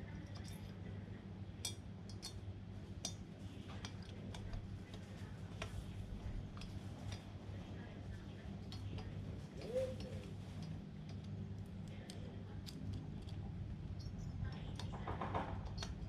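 Light metallic clicks and clinks at irregular moments, the sound of small metal parts and tools being handled during a lawn mower repair, over a steady low hum.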